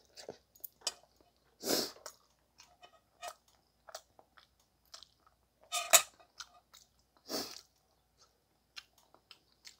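A person chewing a mouthful of rice close to the microphone, with small clicks as metal chopsticks pick food from a plastic container. Three brief louder mouth noises stand out, the loudest about six seconds in.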